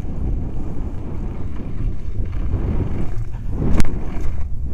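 Wind buffeting the camera microphone over a bicycle rolling across snow, a steady low rumble, with one sharp click near the end.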